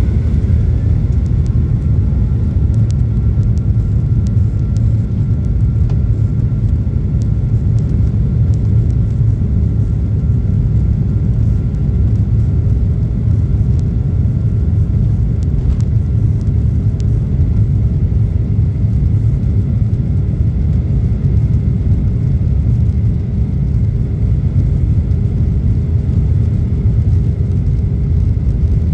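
Steady low rumble of a Boeing jet airliner, even in level throughout, with a faint steady high whine above it.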